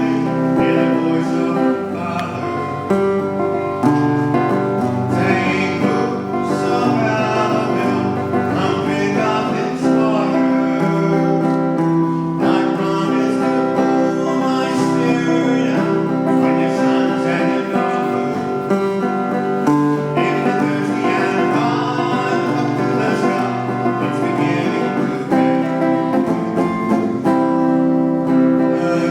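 A song played on acoustic guitar and other plucked strings, with a voice singing along.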